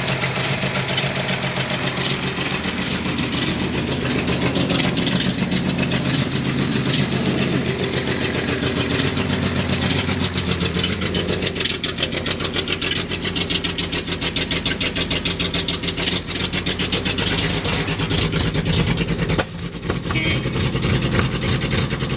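1976 Datsun 280Z's 2.8-litre L28 straight-six idling roughly. Near the end there is a single sharp click and the sound briefly drops.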